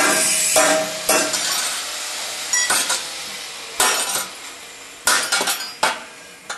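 Irregular sharp metal clanks, each ringing briefly: a hammer striking a small steel bracket held in a jig, then steel flat pieces clinking as they are handled and fitted into it.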